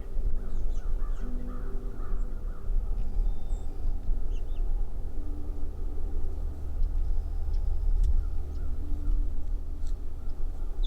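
Crows cawing, a short run of calls from about half a second to two seconds in, over a steady low rumble.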